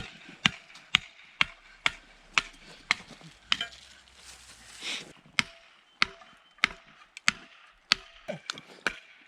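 Firewood being chopped into kindling: a steady run of sharp strikes, about two a second, with a brief scraping rush near the middle.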